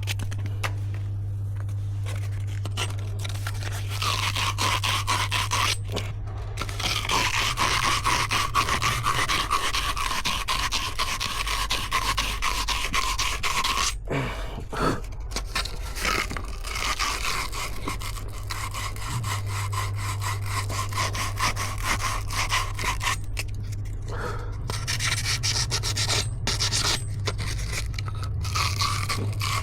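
Continuous rough scraping and rubbing, as of something abrasive worked against a hard surface, breaking off briefly a few times. A steady low hum runs underneath.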